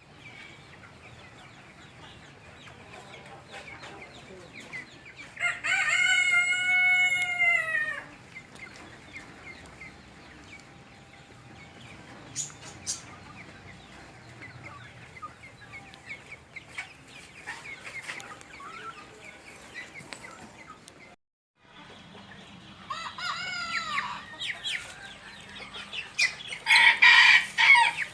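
A flock of chickens clucking and chirping, with a rooster crowing about six seconds in and again about 23 seconds in, and a loud burst of calling near the end.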